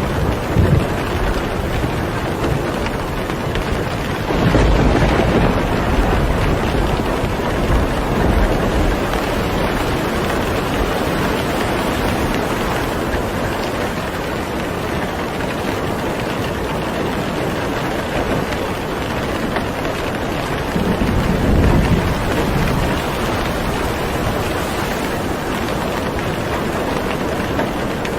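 Steady rain, with low rumbles of thunder about five seconds in and again about twenty-one seconds in.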